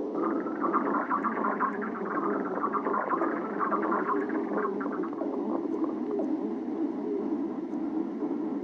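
A person's stomach growling: a continuous low rumble with bubbly gurgling over it, the gurgles busiest from about half a second to five seconds in.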